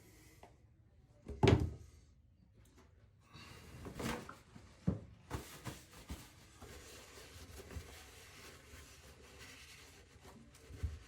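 Knocks and clunks of hand work, the loudest about one and a half seconds in and a cluster around four to five seconds in, then a faint steady rustle and one more knock near the end.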